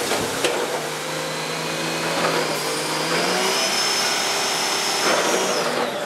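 Large wheeled log stacker dumping logs into a log pond: a splash at the start, then the machine's engine and hydraulics running steadily with a high whine that rises after about two seconds and drops away near the end.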